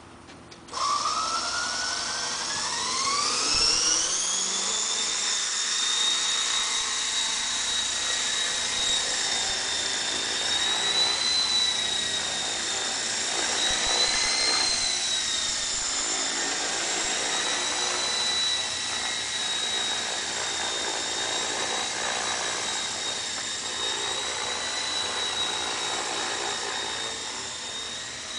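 Falcon 3D radio-controlled model helicopter spooling up with a sharply rising whine about a second in, then holding a steady high whine of motor and rotor as it hovers high, wavering slightly with throttle.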